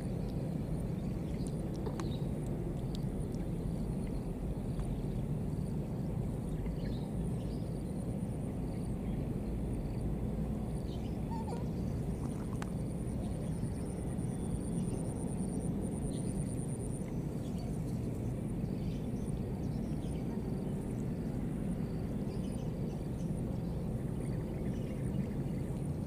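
Steady low outdoor rumble with no clear animal calls, and a faint high, thin buzz that grows stronger for a few seconds midway.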